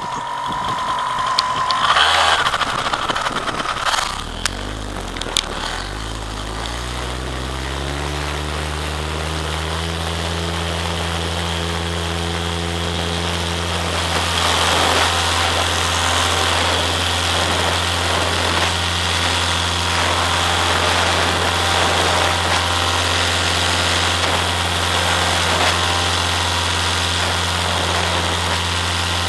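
Paramotor engine starting about four seconds in after a few clicks and knocks. Its pitch climbs for several seconds as it spools up, then it runs steadily. From about halfway through it gets louder and hissier.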